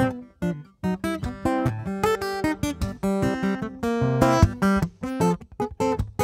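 Acoustic guitar fingerpicked in a blues instrumental break: a quick run of separate plucked notes and chords over low bass notes, with a brief gap about half a second in.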